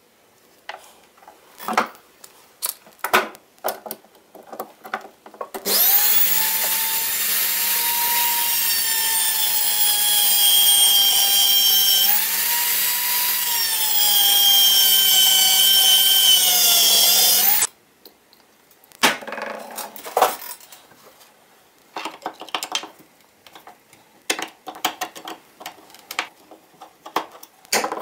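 A high-speed rotary tool with a small abrasive cut-off wheel grinds a slot into a rusted screw head on a cast-iron hand plane body, a steady high whine for about twelve seconds whose pitch sags as the wheel bites into the steel. Before and after it come light clicks and scrapes of the parts being handled and the screw being worked.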